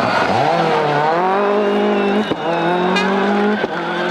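Seat Cordoba WRC's 2-litre turbocharged rally engine revving hard out of a corner. Its note drops sharply, then climbs and holds high, cut twice by quick gear changes.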